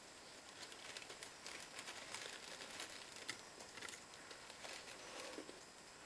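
Faint scattered clicks and light rustling of small plastic toy-drone parts being handled.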